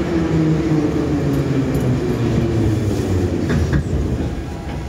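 Еж3 metro train braking into a station, heard from inside the car: its whine glides steadily down in pitch as it slows. The running noise eases off near the end as it comes to a stop.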